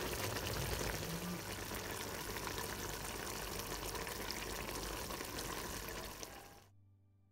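A big pot of tofu and mushroom braise simmering over a wood fire, with a steady wash of bubbling and small scattered crackles. The sound cuts off suddenly near the end.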